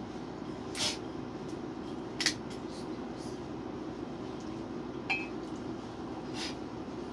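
A few short clicks and clinks of a ceramic mug and a plastic cola bottle being handled at a table, the sharpest about two seconds in, over a steady low hum.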